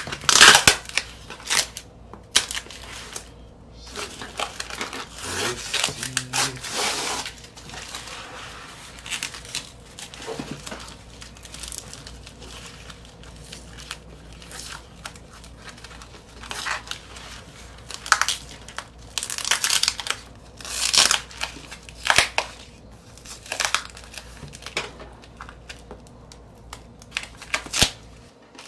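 Clear packing tape and plastic wrap being peeled and torn off a cardboard record mailer, crinkling and ripping in uneven bursts.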